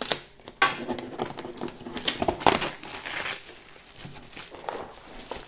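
Cellophane shrink-wrap being broken and torn off a brand-new, never-opened jigsaw puzzle box: crinkling and crackling in a run of sharp bursts, the loudest about two and a half seconds in.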